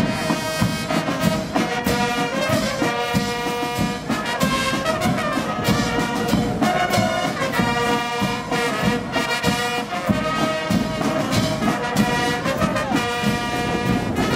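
Brass band playing a tune with a steady beat.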